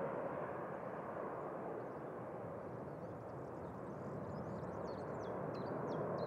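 Distant jet noise from an Air Europa Boeing 787 rolling out on the runway just after touchdown, a steady rush that eases slightly in the middle and swells again near the end. From about halfway, a small bird chirps repeatedly with short falling notes.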